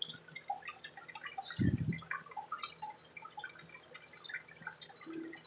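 Aquarium water dripping and trickling in many small splashes over a faint steady hum, with one short louder low sound about two seconds in.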